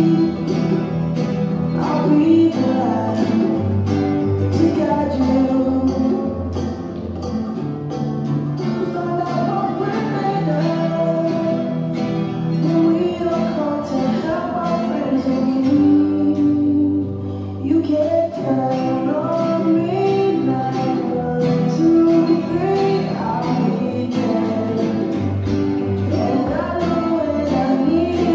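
Three acoustic guitars strummed together in a steady rhythm, with singing over them. The strumming drops out briefly a little past halfway, then carries on.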